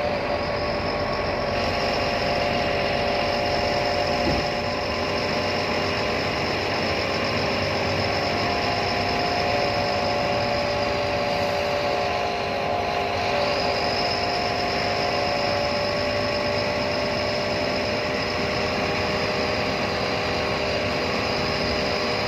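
Steady running noise of a bus on the move, an even engine drone with a high steady whine over it.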